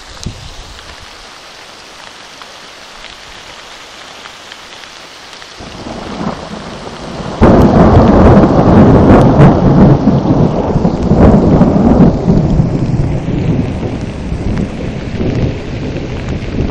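Thunder over steady rain. A low rumble builds about six seconds in, then a sudden loud peal about a second and a half later rolls on heavily for several seconds before slowly easing off.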